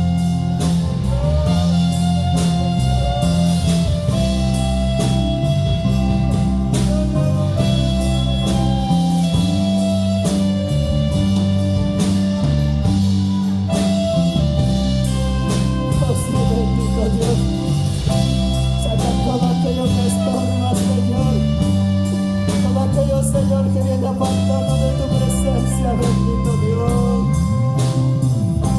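Live worship band playing a slow instrumental passage: bass notes stepping under held melody lines, with a steady drum beat.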